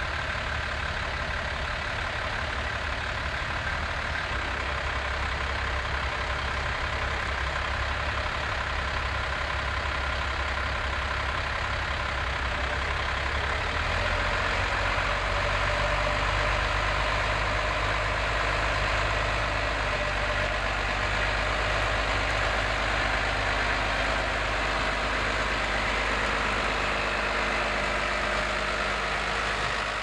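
New Holland T6050 tractor's diesel engine running steadily under load while pulling a plough through the soil. About halfway through, its engine note shifts and grows a little louder.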